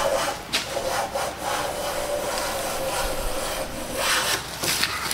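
Siegley No. 5 jackplane taking one long unbroken stroke along a board's edge: a steady rasping hiss of the iron cutting and the sole sliding on the wood, with a few light knocks along the way. It is cutting a thin, wide shaving the full length of the board.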